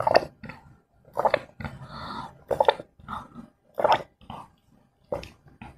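A person gulping a drink from a plastic cup close to the microphone: a run of about ten loud, throaty swallows, roughly one every half second to second.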